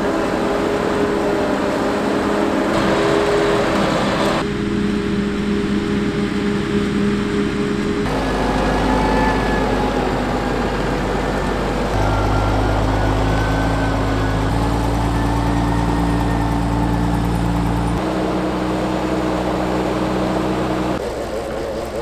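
Heavy farm machinery running steadily: the diesel engines of a Claas Jaguar 870 forage harvester chopping grass and of Fendt tractors pulling forage wagons. The engine tone and mix change abruptly every few seconds.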